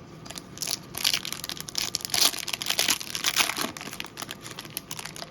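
Foil wrapper of a Garbage Pail Kids Chrome trading-card pack crinkling and tearing as the pack is opened: a rapid crackle, loudest about two to three seconds in, that dies away after about four seconds.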